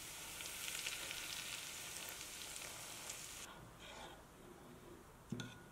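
Hot oil poured onto ground chili and toasted sesame seeds, sizzling with a steady hiss that fades after about three seconds. Then a metal spoon stirs the chili oil, ticking faintly against the ceramic bowl.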